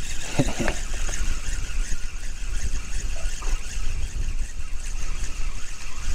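Wind rumbling on the microphone over small waves on open water, while a spinning reel is cranked in on a hooked crucian carp.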